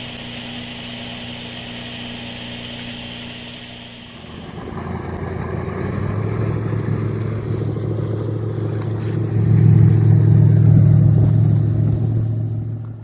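Jet boat engine running steadily, then speeding up about four seconds in and running louder and rougher under way. The sound cuts off suddenly near the end.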